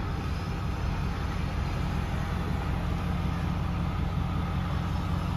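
Steady engine and road noise of a slowly moving vehicle, heard from inside its cab: an even low hum with no change in pace.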